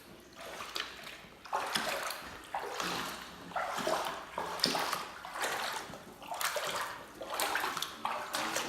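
Boots wading through several inches of floodwater, sloshing and splashing at about one step a second.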